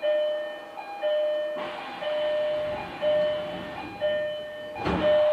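Door-closing warning chime at departure on the Kobe City Subway, a two-note ding-dong repeating about once a second, with a rush of air from about a second and a half in and a single thud near the end as the doors shut.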